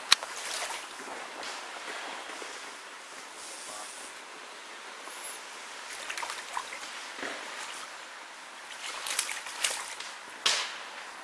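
Shallow stream water running steadily, with a sharp click right at the start and a few short, sharp sounds about nine to ten and a half seconds in.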